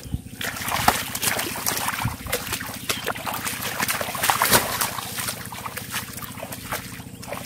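Bare feet splashing and sloshing through shallow floodwater in a grassy field, with many quick, sharp splashes, over a steady low pulsing drone.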